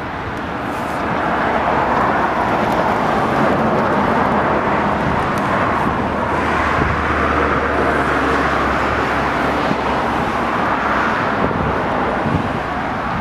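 Airbus A340-600's four Rolls-Royce Trent 500 turbofan engines on final approach to land: a steady jet rush that grows louder over the first couple of seconds and then holds. Gusty wind rumbles on the microphone underneath.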